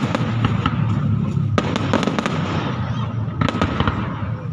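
Aerial fireworks display: many sharp bangs and crackles in quick succession over a continuous low rumble, with bigger bangs about one and a half and three and a half seconds in.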